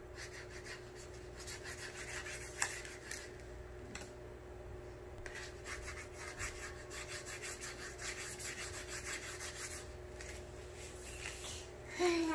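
Felt-tip marker scribbling on a white board in quick, repeated rubbing strokes.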